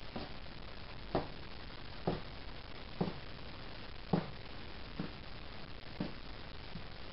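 Soft thumps about once a second, six in all, as hands fold fabric strips over and press them down onto a cutting mat on a table.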